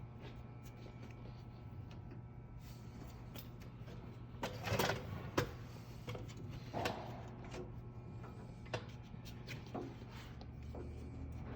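Small clicks, taps and rattles of switch parts being handled and fitted back together, loudest about five seconds in, over a steady low hum.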